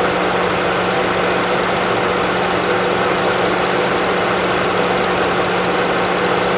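Ford Explorer 3.5-litre V6 engine idling steadily, with a constant low hum, while the EVAP vent solenoid is commanded closed for a leak test.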